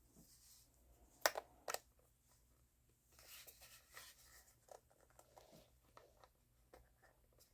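Hard plastic parts knocking and scraping: two sharp clicks close together, then soft rubbing and fumbling, as a small plastic handpiece holder is pushed against the side of a nail drill's control box and does not click into place.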